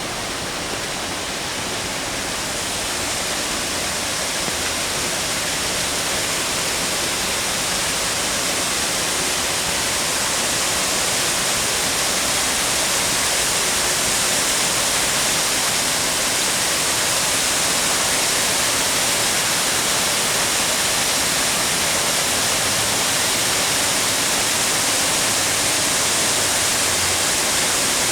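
A small waterfall (water drop) on a city river rushing and splashing steadily, growing a little louder over the first ten seconds or so, then holding steady.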